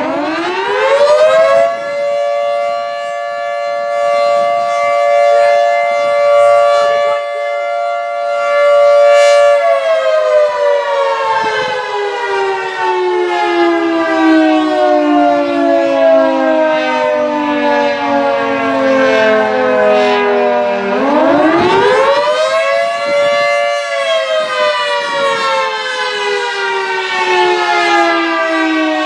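Federal Sign & Signal 2T22 dual-tone siren sounding its two-note chord. It winds up fast, holds steady for about eight seconds, then slowly winds down. About 21 seconds in it winds up again, holds briefly and starts another descent: the rising and falling of an attack signal during a siren test.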